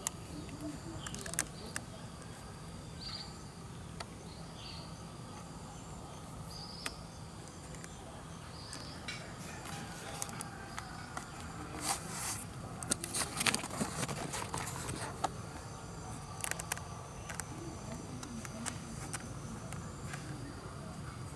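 Forest ambience dominated by insects trilling steadily at a high pitch, with a few short high calls in the first ten seconds. Scattered clicks and crackling rustles come in a cluster around the middle and are the loudest part.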